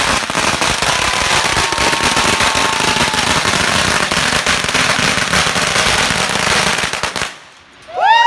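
A long, rapid string of firecracker bangs crackling without a break for about seven seconds, then stopping suddenly. Several shrill whistles start right at the end.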